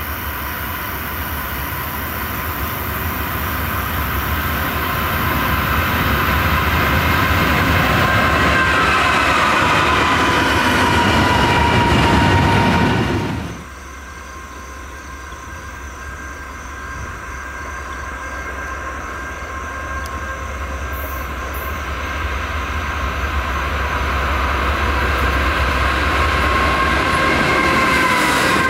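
Diesel freight trains approaching on the line: locomotive rumble with steady high-pitched tones over it, growing louder and dipping in pitch about a third of the way in. About halfway through it cuts abruptly to a second, quieter train. That train's rumble builds steadily as its locomotives draw close near the end.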